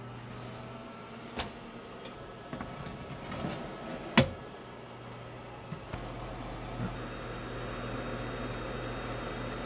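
Countertop oven being loaded: the door is opened and a tart in its metal tin is slid onto the oven tray, giving small clicks and one sharp knock about four seconds in. The running oven hums steadily underneath, with a deeper hum joining about six seconds in.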